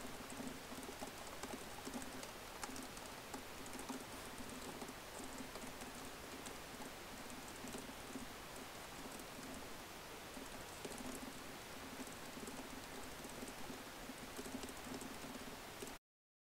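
Faint, rapid key clicks of a laptop keyboard being typed on steadily. The clicks cut off suddenly near the end.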